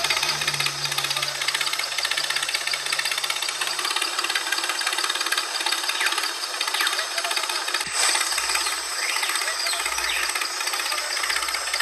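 Miniature toy tractor's running sound: a steady, fast engine-like knocking, with a short break about eight seconds in.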